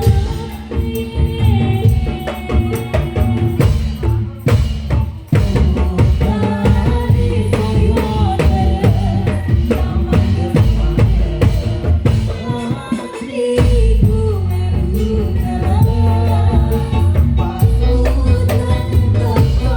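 Indonesian patrol music played live: a wavering melodic line, sung or played, over heavy drums and jingling shaker-type percussion.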